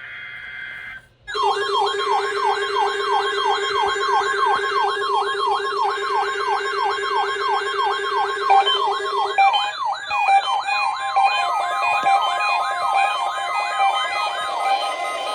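Weather-radio warning alarm test: an electronic siren yelping rapidly up and down, about three sweeps a second, over a steady tone near 1 kHz. It starts about a second in after a brief dropout. A lower buzzing tone under it stops about nine seconds in, and near the end the sweeps give way to shifting stepped tones.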